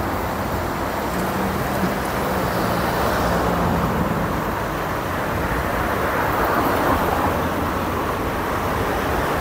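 Steady road traffic noise: cars passing on the road close by, a continuous hiss with no single standout event.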